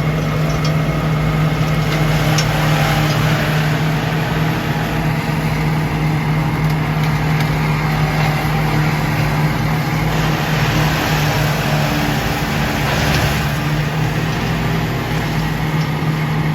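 Heavy machinery engine running at a steady drone, with a strong low hum, heard from inside a machine's cab; the noise swells briefly about thirteen seconds in.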